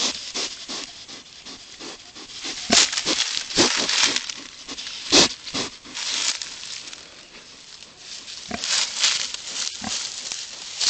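Pigs rooting and snuffling through undergrowth right at the microphone, rustling leaves and stems in an irregular stream of close, noisy bursts. The loudest come about three and five seconds in.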